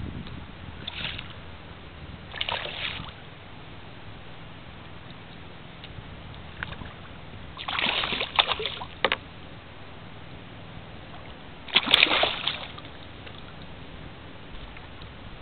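A corbina thrashing in shallow water, making several short bursts of splashing with steady background noise between them; the longest and loudest bursts come in the second half.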